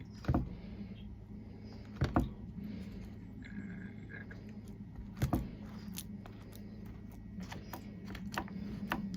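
A nut and puffed rice mixture being pressed down firmly into a bar mould with a utensil: three sharp knocks and many lighter clicks and taps, over a steady low hum.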